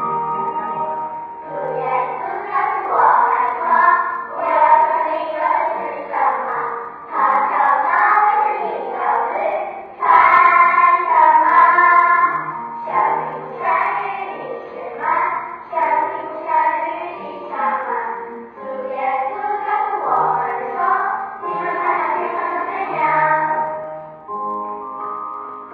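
A group of children singing a Christian song together, with instrumental accompaniment.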